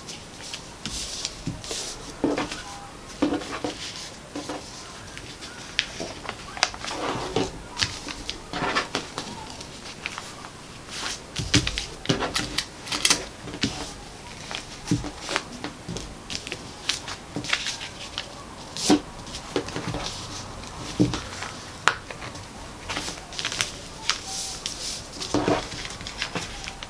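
Paper sewing pattern and cotton wax print fabric being handled and pinned together on a cutting mat: irregular paper rustles with light taps and clicks from pins and fingers.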